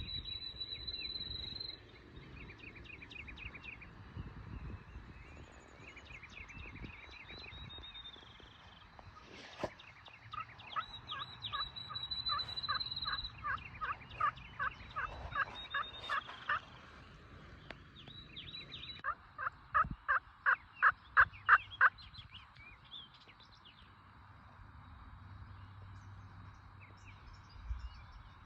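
Turkey yelping in two runs of evenly spaced notes, about three a second; the second run, near the end, is the loudest. Songbirds' high whistles and trills run alongside.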